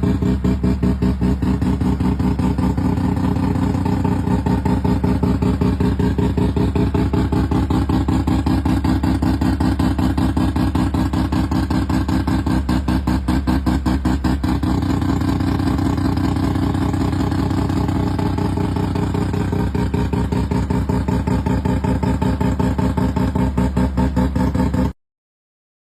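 Mazda RX-7's two-rotor Wankel rotary engine idling with a rapid, even pulsing exhaust beat. It cuts off suddenly near the end.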